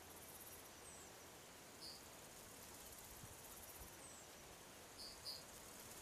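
Faint high-pitched insect trilling, with a few short, high bird chirps: one about two seconds in and two close together near the end.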